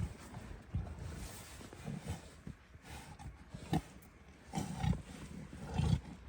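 Tigers growling in short, deep bursts while play-fighting, the bursts stronger in the second half.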